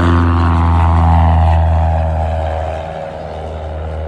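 Propeller airplane's engine passing close by, its note falling in pitch over a steady low hum and getting quieter about three seconds in.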